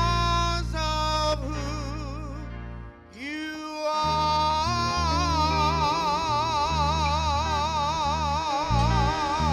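Church worship music: a solo voice sings a short phrase, breaks off briefly about three seconds in, then holds one long note with wide vibrato over sustained low bass chords.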